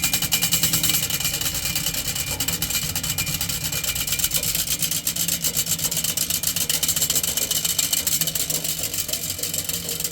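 Box fan with a steel-spoked bicycle rim in place of its blades, coasting down after being switched off: the motor and spinning rim give a rapid clicking rattle that grows slightly quieter.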